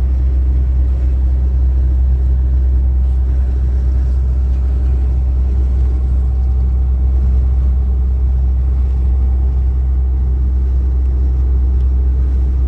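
Car-hauler truck driving at a steady speed: a constant deep engine and road rumble.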